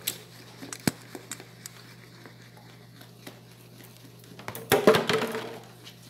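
A spoon stirring thick, creamy liquid in a plastic basin, with light clicks and scrapes of the spoon against the bowl over a steady low hum. A sharp click comes about a second in, and a brief, louder noise about five seconds in.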